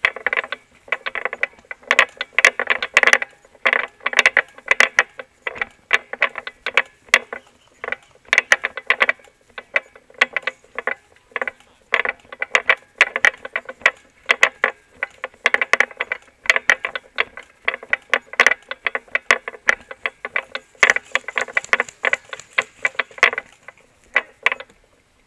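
Airsoft electric guns firing in rapid bursts, a fast mechanical clatter of gearbox cycling and shots that comes and goes all through.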